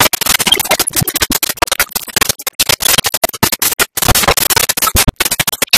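Loud, dense, irregular crackling and clicking: a harsh scratchy noise with no clear pitch or rhythm.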